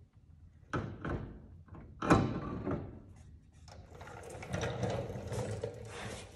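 Aluminium front-mount intercooler being lifted and set into its brackets on a car's front end: sharp metal knocks about a second in and again at about two seconds, the second the loudest, then lighter scraping and clatter as it is worked into position.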